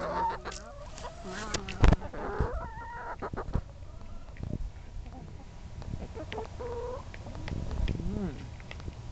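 Hens clucking and giving short calls as they crowd and feed from a small bowl, with beaks pecking and tapping against it. A sharp knock about two seconds in is the loudest sound.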